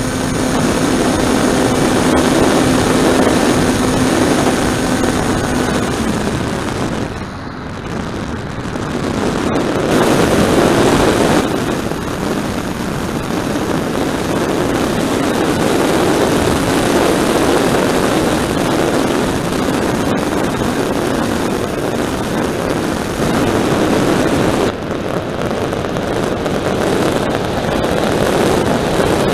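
Onboard audio from a small RC plane in flight: the motor and propeller drone at a steady pitch, which drops out about six seconds in. Air rushing over the airframe and microphone makes a continuous loud noise, easing briefly around seven seconds in before building again.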